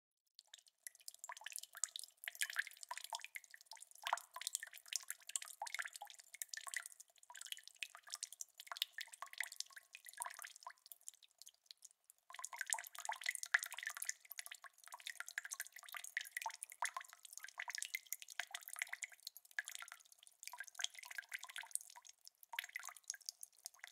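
Water dripping and trickling in quick, irregular drips and small splashes, thin and without any low end, pausing briefly about halfway through and again near the end.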